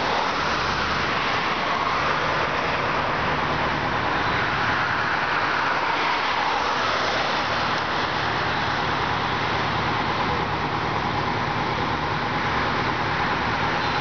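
Steady road traffic noise, with a pickup truck driving past at the start.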